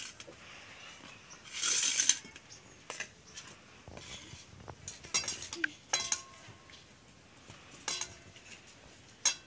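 Stainless steel plates, bowls and a serving ladle clinking and scraping as food is dished out, with a louder scrape about two seconds in and metal clinks that ring briefly around six and eight seconds.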